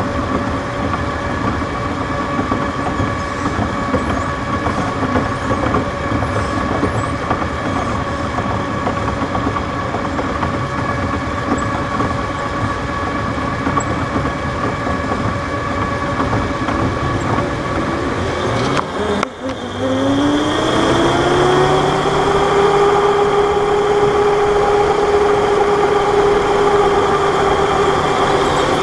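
Electric go-kart running with a steady hum and a few held tones. About two-thirds of the way through, the motor's whine rises in pitch and then levels off as the kart pulls away and gathers speed, slightly louder than before.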